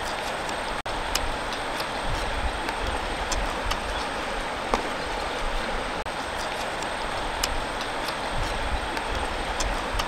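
Steady rush of a shallow river running over stones, with a few scattered sharp clicks of chewing.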